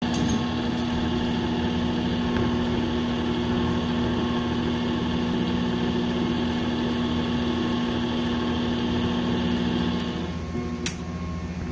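Motor of a jar-test gang paddle stirrer running with a steady hum while it mixes sand-ballasted coagulant and floc samples, then switched off about ten seconds in so the floc can settle; a sharp click follows.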